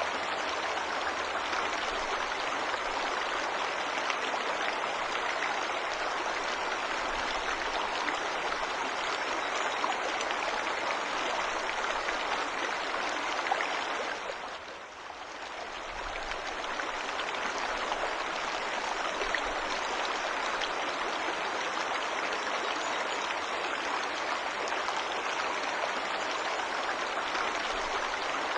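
Waterfall water rushing in a steady, dense hiss, dipping briefly in level about halfway through.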